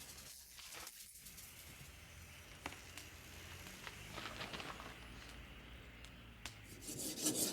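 Faint hiss with a few small clicks. Near the end a scraping starts as the quenched katana blade is ground to check it.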